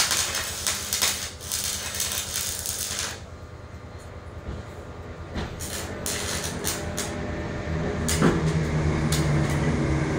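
Stick (MMA) welding arc crackling and spitting, which stops about three seconds in. A few sharp taps follow as the flux-coated electrode is struck against the work, and a steady low hum comes up near the end. The electrode tip has lost its flux coating, leaving bare wire sticking out, which makes the arc hard to strike.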